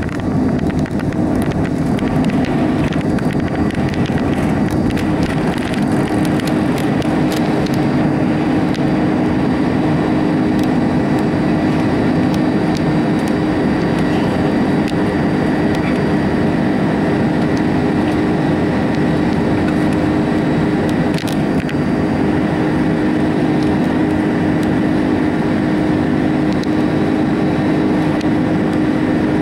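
Airbus A310's wing-mounted turbofan engines at takeoff thrust, heard inside the cabin just above the wing: a loud, steady roar with a constant low hum through the end of the takeoff roll, liftoff and initial climb.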